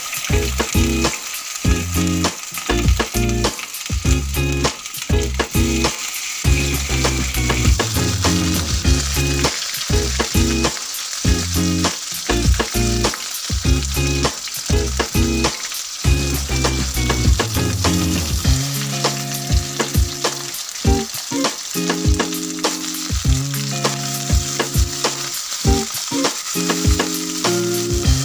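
Egg sizzling and crackling in hot oil in an iron karahi, with a metal spatula stirring and scraping through it.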